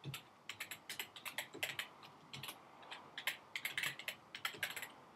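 Typing on a computer keyboard: quick runs of key clicks with short pauses between them.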